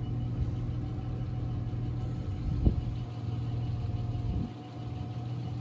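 A vehicle engine idling steadily with a low, even hum. There is one brief thump about halfway through.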